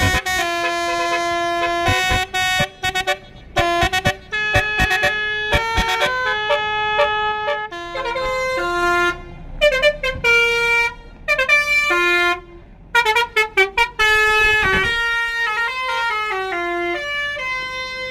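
Tourist bus's basuri musical air horn (telolet horn) playing a tune in stepped notes. It mixes held tones with runs of short, quick toots and brief pauses between phrases.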